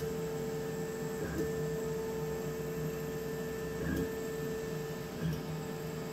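Laser cutter running as it cuts plywood: a steady mechanical hum with a constant mid-pitched tone. The tone breaks off briefly with soft ticks about three times as the head moves between cuts.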